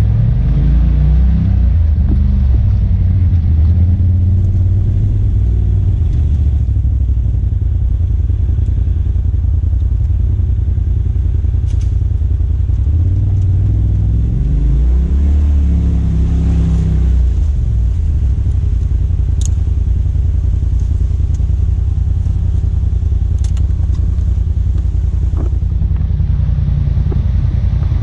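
Side-by-side UTV engine running under way on a rough trail, its pitch rising and falling as the throttle is worked near the start and again around the middle. A few sharp clicks in the second half.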